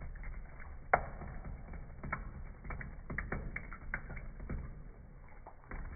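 Cat lapping water from a thin running faucet stream, slowed down: irregular wet clicks and ticks, several a second, the loudest about a second in, over a steady low rumble.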